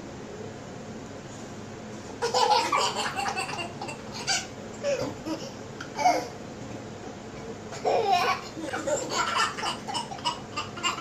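Two toddlers laughing in repeated bursts of giggles, starting about two seconds in, with a short pause near the middle.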